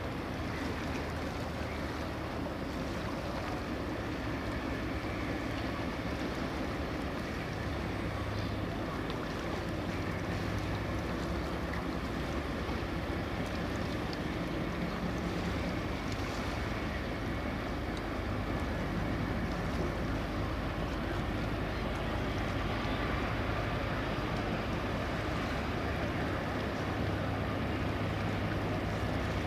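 Police launch's inboard engine running steadily as a low hum, growing a little louder as the boat comes closer, over a hiss of wind and water.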